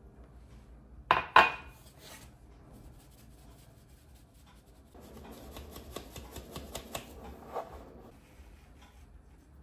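Two sharp knocks a little after a second in, then a plastic mesh sieve shaken and tapped over a plate for a few seconds: a quick run of light ticks and rustle as fine spice powder sifts through.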